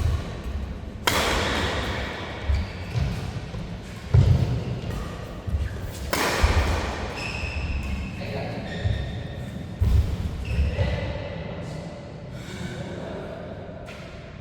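Badminton doubles play in a large hall: repeated thuds on the court and two sudden loud smacks, about a second in and about six seconds in, with voices.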